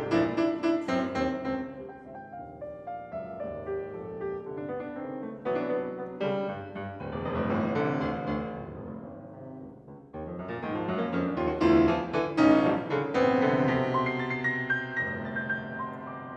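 Solo grand piano playing a classical concert piece in dense, fast passages. It drops quieter a couple of seconds in, swells again, dips briefly, then returns loud about three-quarters of the way through.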